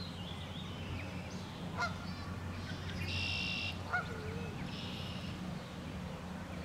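Canada geese calling: several short calls scattered through, two of them longer and higher, over a steady low hum.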